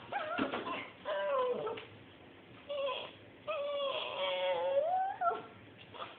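A domestic animal making four wavering, pitched calls, the last about two seconds long and rising near its end.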